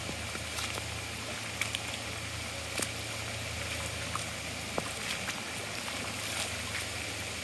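Floodwater runoff rushing steadily, with a few faint clicks scattered through it.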